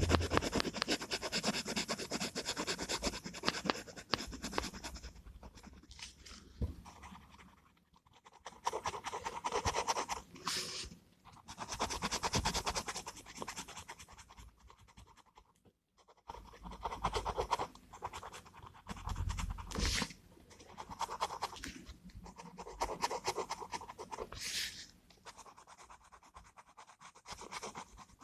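Gel pen scratching across paper in bursts of strokes, with short pauses between them.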